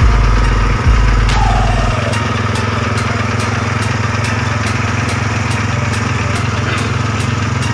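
Small engine running steadily at constant speed. A heavy low rumble drops away about two seconds in, after which faint regular ticks come about twice a second over the engine note.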